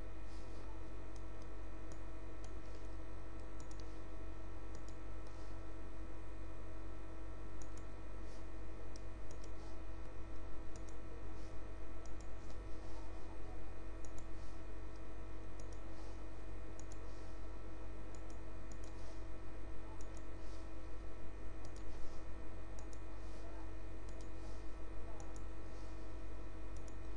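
Computer mouse clicking over and over at an irregular pace as shapes are selected and reordered in drawing software, over a steady electrical hum.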